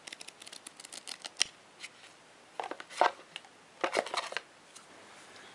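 Pages of a small paper user manual riffled quickly with the thumb, a rapid run of crisp flicks over about a second and a half. Then a few scattered rustles and light taps as the cardboard box contents are handled.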